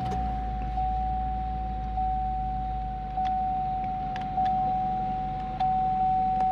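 Cadillac Escalade V8 idling just after start-up, with a dashboard warning chime dinging steadily about every 1.2 seconds.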